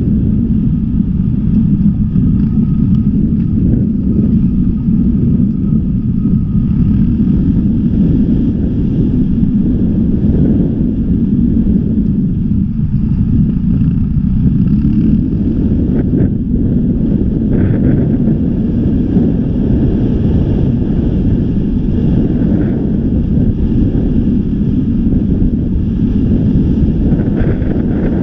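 Wind buffeting a moving microphone: a loud, steady low rumble.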